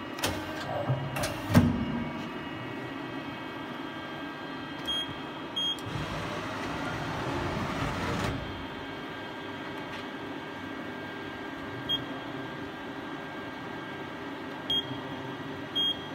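Hyundai KIA SKT 21 LMS CNC lathe running with a steady hum, with a few knocks and one loud clunk in the first two seconds and a rushing swell from about six to eight seconds. Several short high beeps sound throughout.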